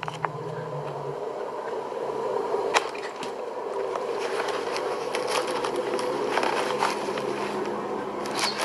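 Hands rummaging through a handbag: continuous rustling with scattered sharp clicks, over a steady hum.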